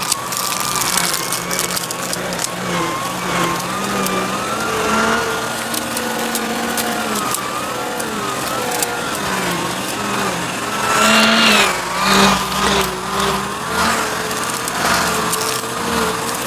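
Bissell CleanView upright vacuum cleaner running, its motor pitch wavering up and down. Debris crackles and crunches as it is sucked up, with two louder bursts about eleven and twelve seconds in.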